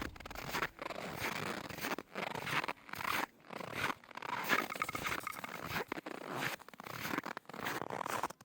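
Footsteps crunching through snow at a steady walking pace, one crunch after another with short gaps between them.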